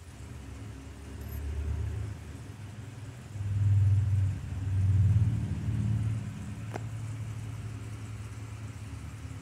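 Low rumble of handling noise on a handheld camera's microphone, swelling in three or four louder surges in the middle, with a faint click about two-thirds through.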